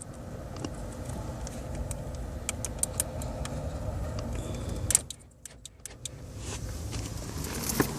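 2005 Chevy Malibu's power door lock actuators clicking and clunking as they lock and unlock by themselves, over a steady low rumble, with the loudest clunk about five seconds in. The locks start cycling again as soon as the lock fuse is put back in, a fault the owner traces to a bad door lock switch.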